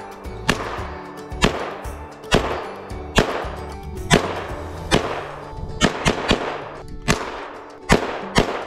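Norinco SKS semi-automatic rifle (7.62×39mm) firing shot after shot at a tree, about ten shots roughly a second apart, each ringing out. Background music plays underneath.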